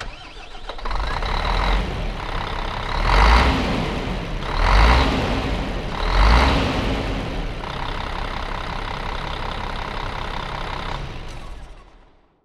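Heavy diesel bus engine running, swelling loudly three times about a second and a half apart, as if revved, then fading out.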